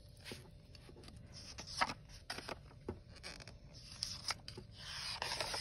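Pages of a hardcover picture book being turned by hand: paper rustling with a few light ticks and taps, then a longer swishing page turn near the end.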